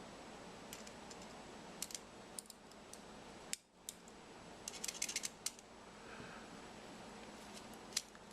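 Small sharp metallic clicks and taps of a small screwdriver working a tiny screw out of the end piece of a steel dial caliper. The clicks are scattered, with a quick run of them about five seconds in, over a steady faint hiss.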